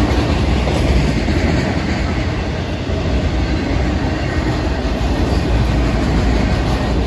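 Florida East Coast Railway freight train rolling past, a steady loud rumble of wheels on rail.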